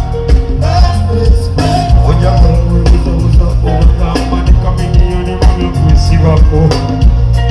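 Live band music over a large stage sound system, with a heavy bass line and a steady beat, a song being run through at sound check; the vocal drops out and the instruments carry on.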